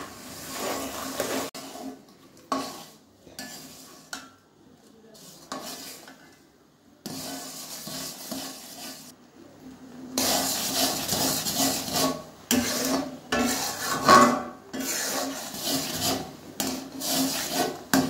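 Metal spatula scraping and stirring against the inside of an aluminium karahi as date-palm jaggery syrup boils down, in spells broken by short pauses.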